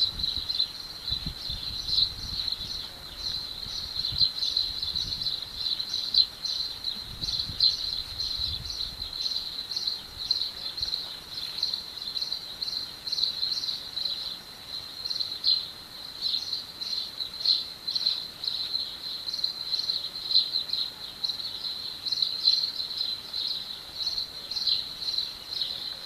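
Insects chirping: a steady high-pitched trill made of quick, even pulses.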